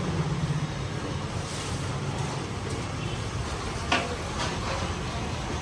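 Steady low rumbling background noise, with one sharp knock about four seconds in.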